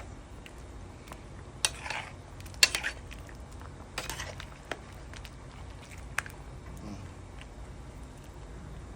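Cooking utensil knocking and scraping against a pot: a few sharp clinks spread out, with a short scrape about four seconds in, over a steady low hum.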